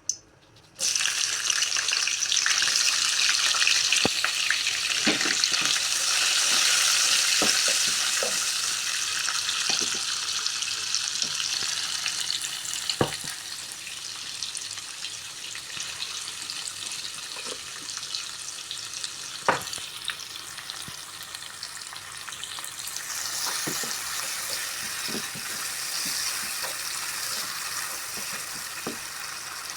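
Food sizzling in hot oil in a pan, the sizzle starting suddenly about a second in as it hits the oil and easing somewhat past the middle. A spatula scrapes and taps the pan now and then.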